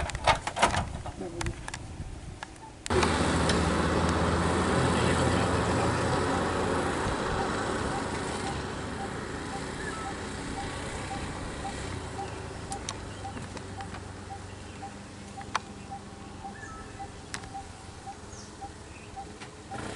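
A few sharp knocks, then an auto-rickshaw's small engine running, fading slowly as it moves off, with a faint regular tick about twice a second.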